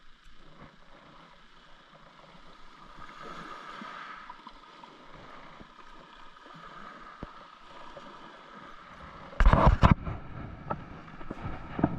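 Steady wash of sea water, with a burst of loud knocks and clatter about nine and a half seconds in and another sharp knock near the end.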